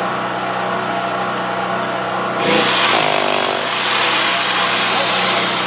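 Corded electric rotary hammer running against a rock face. A steady motor hum changes about two and a half seconds in: the tool gets louder as it bites, with hammering noise and a high whine that rises, holds, then slowly drops near the end.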